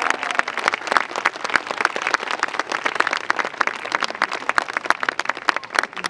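Audience applauding, many hands clapping irregularly.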